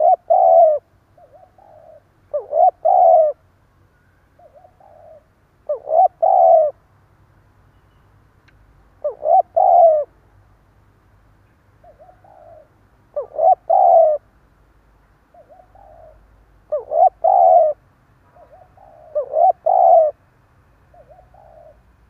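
Caged spotted dove cooing in the stuttering ('cà lăm') style used on decoy birds to call in wild doves: seven loud phrases, each of two or three quick notes, about every three seconds, with softer coos between them.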